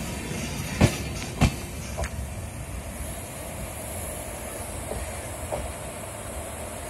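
Passenger train's last coach rolling past and pulling away: its wheels clack over a rail joint twice in quick succession about a second in, then once more, before the rumble of the departing train fades.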